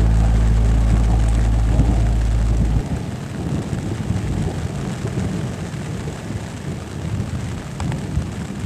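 Thunderstorm: a loud low rumble of thunder that cuts off suddenly about three seconds in, then the steady hiss of rain falling.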